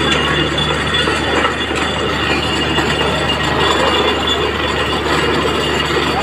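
Truck-mounted borewell drilling rig running with a steady mechanical drone and rattle while compressed air drives water up out of the bore; the well has struck water, about a 2-inch flow.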